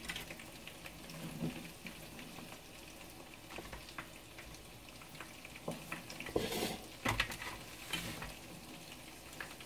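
Hot oil sizzling steadily in a frying pan, with light clicks of chopsticks and a few sharper clacks of utensils about two-thirds of the way through.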